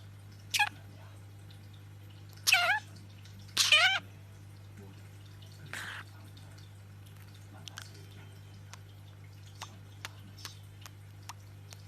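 A cat meowing three times, short calls with a bending pitch, the second and third louder. About six seconds in comes a short noisy sound, followed by scattered faint ticks over a low steady hum.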